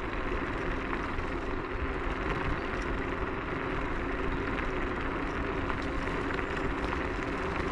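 Techlife X7S electric scooter riding along a path: steady rumble of the tyres on the surface mixed with wind noise, with a faint steady whine.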